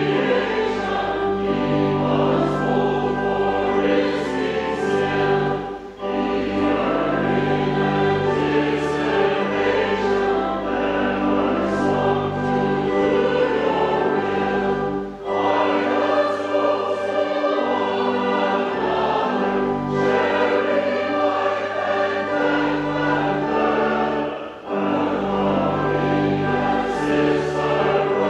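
Sung church music: a group of voices singing with sustained instrumental accompaniment, breaking briefly between phrases about every nine seconds.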